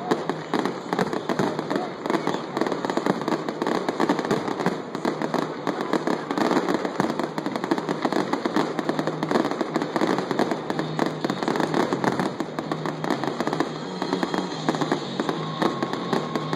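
Aerial fireworks bursting in rapid succession: a dense, continuous barrage of bangs and pops with no break.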